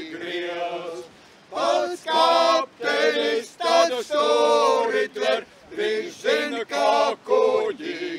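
A group of men singing a Latvian folk song a cappella, in Suiti drone-singing style, in separate phrases with a short pause about a second in.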